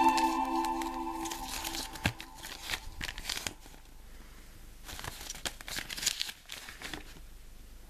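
A thin paper leaflet from a Kinder Surprise egg being unfolded and folded back by hand, crinkling and rustling in short irregular spells, with a single sharp tap about two seconds in.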